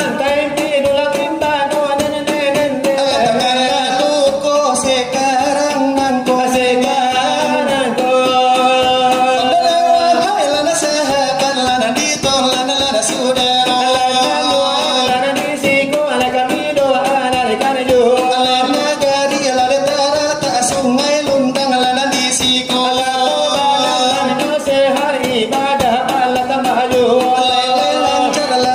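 Selawat dulang: long, drawn-out Minangkabau sung verses over fast, continuous hand-beating on brass trays (dulang).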